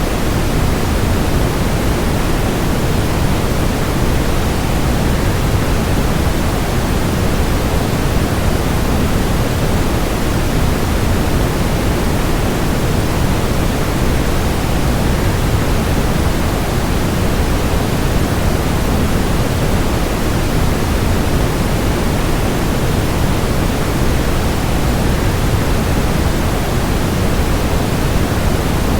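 Steady, unchanging rushing noise, heaviest in the low end: a waterfall sleep-noise track.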